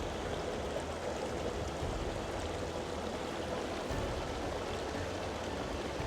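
Wind blowing across the microphone: a steady rushing noise with uneven low rumbling buffets.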